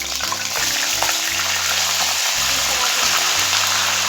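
Bone-in mutton pieces sizzling in hot ghee with fried garlic and ginger in a karahi: a dense, steady frying hiss.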